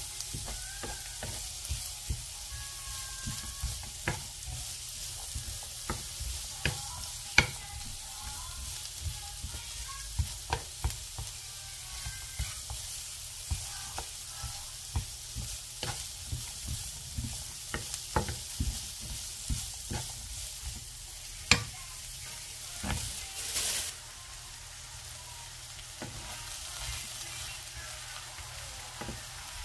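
Onion and carrot sizzling in oil in a nonstick frying pan while a wooden spatula stirs them, tapping and scraping against the pan about once or twice a second. About three-quarters of the way through, sliced shiitake mushrooms are tipped into the pan with a brief louder rustle, and the sizzle is a little quieter after.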